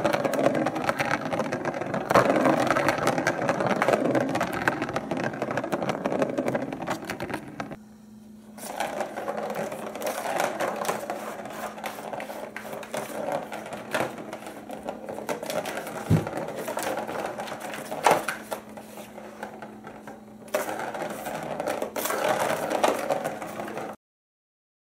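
Plastic ball rolling and rattling around the circular track of a Turbo Scratcher cat toy as a cat bats it, a continuous rumble with frequent knocks. It dies down briefly about eight seconds in and cuts off suddenly near the end.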